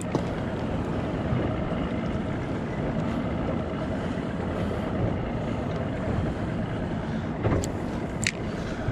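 Steady rumbling background noise aboard a small fishing boat on open water, with two short sharp clicks near the end.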